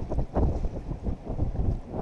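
Strong wind buffeting the camera microphone, an uneven low rumble that swells and drops in gusts.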